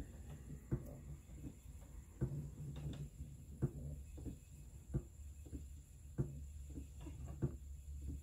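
Wooden spinning wheel being treadled for plying: a soft knock about every second and a quarter, with fainter clicks between, over a low steady hum.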